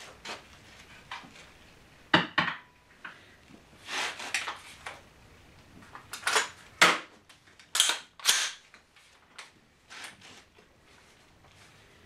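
DPMS AR-15 upper receiver being fitted onto a lower receiver by hand: a series of sharp metallic clicks and clacks in several clusters, a couple of seconds apart.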